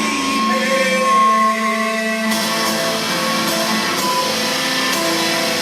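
Live guitar music, with notes held and ringing over one another and no singing.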